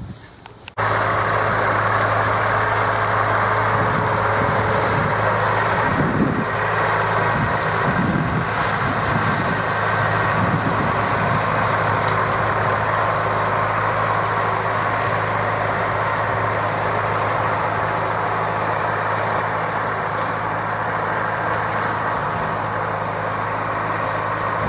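Tractor engine running steadily as the tractor mows tall rough grass. The sound comes in abruptly just under a second in and holds an even hum throughout.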